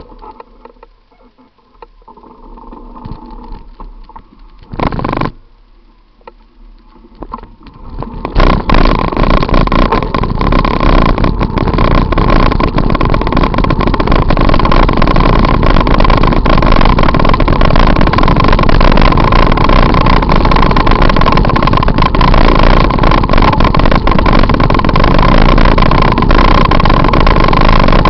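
Wind and road noise on a bicycle-mounted camera's microphone while riding, loud and steady from about eight seconds in. Before that, quieter street sounds with one short loud burst around five seconds.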